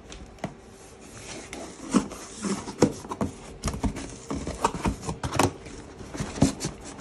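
Corrugated cardboard box being opened by hand: flaps bending, scraping and rubbing, with irregular knocks of the cardboard.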